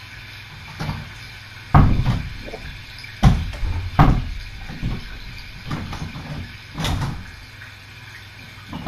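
A series of sharp knocks and thumps, about six in nine seconds, as a door is handled and shut.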